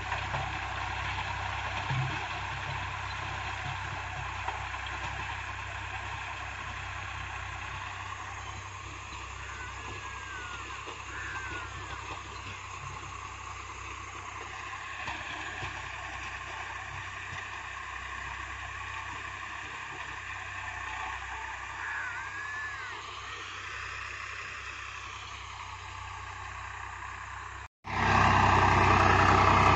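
Farm tractor's diesel engine running steadily while tilling a field, heard from a distance. Just before the end there is a sudden break, after which the engine is much louder and closer.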